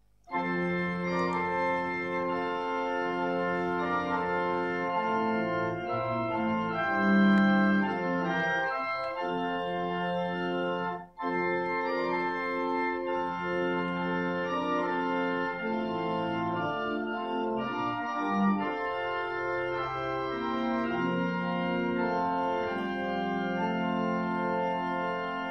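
Organ music playing slow, sustained chords as a prelude to a church service, with a brief break about eleven seconds in.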